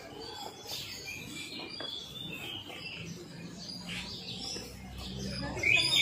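Many caged songbirds chirping and twittering over one another in short overlapping calls, growing louder near the end.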